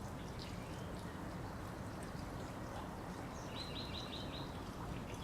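Steady background noise, with a bird calling a quick run of about five chirps about three and a half seconds in.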